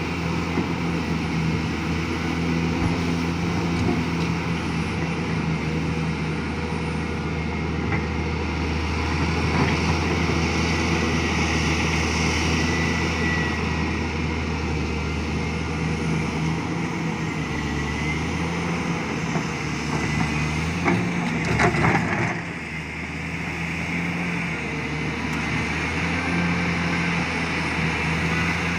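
Large diesel engine of a Hyundai R800LC-9 excavator running steadily, its pitch and level shifting slightly as it takes load, with a brief dip about three-quarters of the way through.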